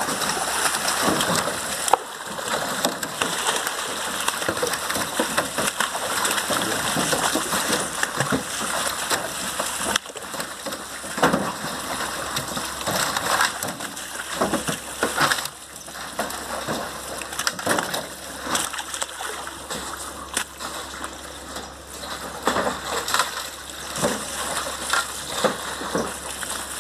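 Water gushing from a live-fish transport tank down a metal chute and splashing into a pond, carrying tilapia out with it. The flow is heavy for about the first ten seconds, then eases to a lighter, uneven pour with scattered splashes.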